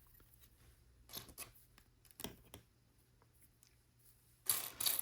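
Plastic LEGO pieces being handled: a few scattered light clicks, then a louder burst of clicking and rattling near the end as pieces are sorted through.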